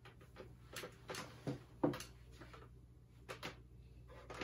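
A pastel stick drawing on paper at an easel: short scratchy strokes at irregular spacing, a few a second, a couple with a light knock, over a low steady hum.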